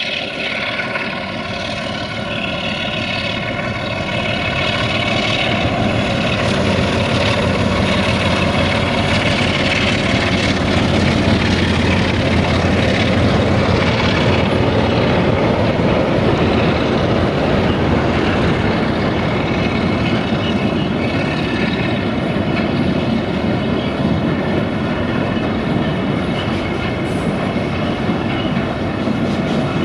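Electroputere 060-DA (LDE2100) diesel-electric locomotive's Sulzer 12-cylinder diesel engine droning as it hauls a freight train past, growing louder over the first ten seconds or so. It gives way to a steady rumble of hopper wagons rolling by on the track.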